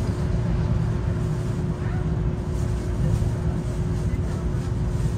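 Streetcar heard from inside the cab: a steady low rumble with a constant hum over it.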